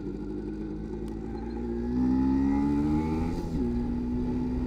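1986 MZ ETZ 250's single-cylinder two-stroke engine pulling under acceleration: its pitch climbs from about two seconds in, drops sharply at a gear change a little after three seconds, then holds steady.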